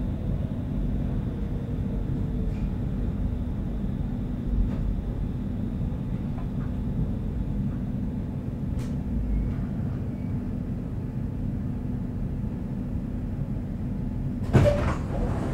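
Inside a Stockholm Metro C30 car standing at a platform: the train's equipment and ventilation hum steadily, with a faint high whine. Near the end there is a sudden loud clunk and rush of air as the doors open.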